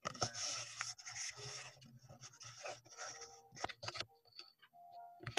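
Rustling and rubbing of paper close to a microphone, in irregular bursts for about four seconds, then a few faint short tones and a sharp click near the end.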